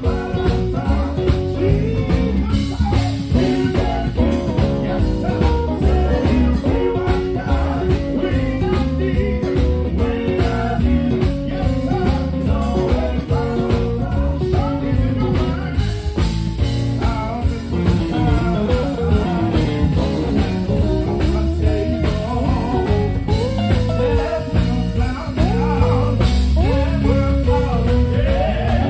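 Live gospel group music: a lead singer with backing vocalists singing over electric guitars and a steady band beat with heavy bass.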